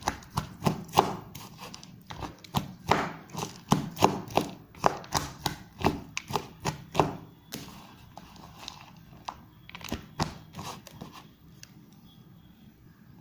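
Close-miked crunching and chewing of Wai Wai instant noodles: quick crisp crunches about two to three a second for the first seven seconds or so, then sparser, dying away after about eleven seconds.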